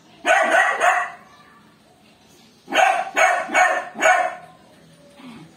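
Miniature dachshund puppies barking in play: a quick cluster of barks near the start, then four barks in a row about three seconds in.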